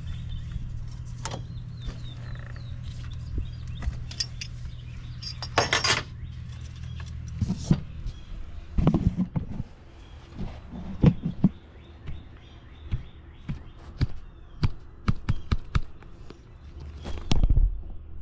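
Hand tools and small metal hardware clinking and knocking during work on a carburetor's throttle linkage, with a jangle about six seconds in. A steady low hum stops about seven seconds in and comes back near the end.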